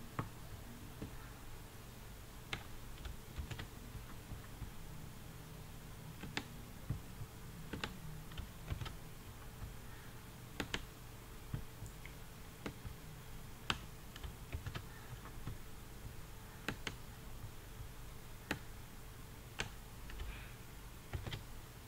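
Faint computer keyboard key presses and mouse clicks, sparse and irregular at about one a second, over a steady low hum.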